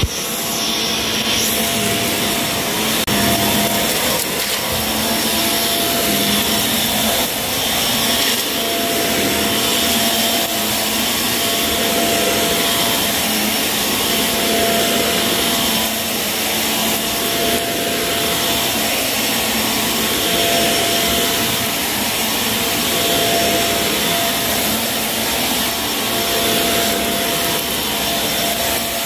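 Shark vacuum cleaner running steadily over a dirty carpet, with a gritty crunching as it picks up debris.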